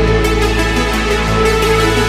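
Background music with held bass notes that change every second or so.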